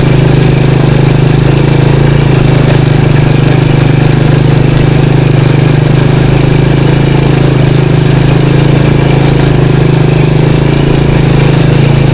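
Motorcycle engine running at steady revs while under way.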